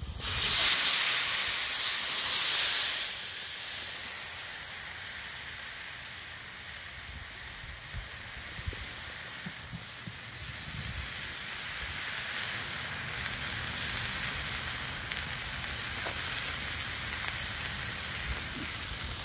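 A whole marinated yellowtail fish sizzling on a hot oiled flat-top griddle: a loud hiss for the first three seconds as the fish goes down onto the preheated steel, then a steady, quieter frying sizzle.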